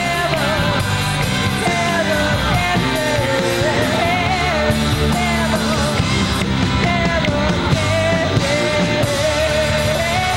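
Female lead vocal singing long, wavering notes over a live rock band of drums, bass, electric guitar and keyboards.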